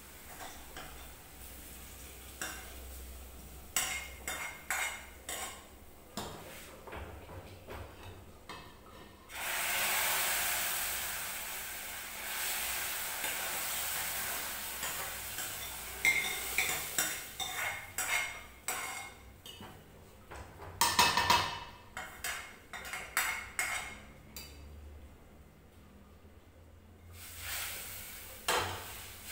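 Browned tadka scraped with a spoon out of a steel bowl into a pot of dal, sizzling for several seconds from about nine seconds in. Afterwards the spoon clinks and scrapes against the steel bowl and pots.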